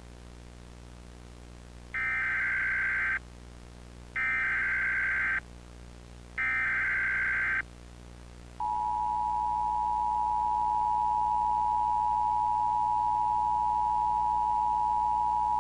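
Emergency Alert System tones: three short bursts of SAME digital header data, each just over a second long and about a second apart, then the steady two-tone attention signal, which begins about halfway through and holds.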